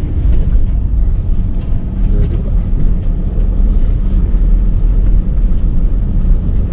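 Vehicle driving slowly along a road: a steady low rumble of engine and road noise with a faint engine hum.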